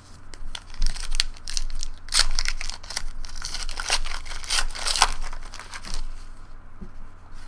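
Trading card pack wrapper crinkling and tearing as it is handled and opened, a dense run of crackles heaviest in the middle seconds and thinning near the end.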